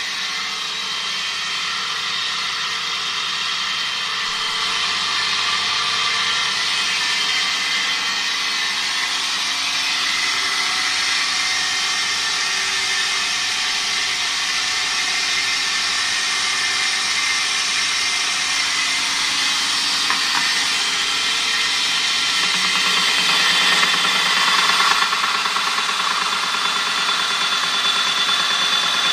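Homemade belt sander driven by a 550 W, 2800 rpm electric motor, running steadily. It gets a little louder for a few seconds about three-quarters of the way through.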